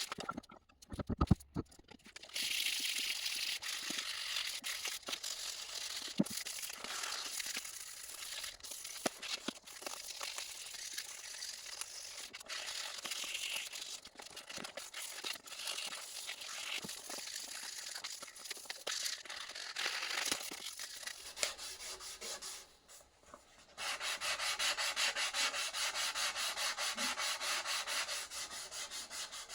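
Sanding by hand: abrasive paper rubbed back and forth in quick, even strokes, as a scratchy hiss that pauses briefly and comes back denser near the end. A few sharp knocks about a second in.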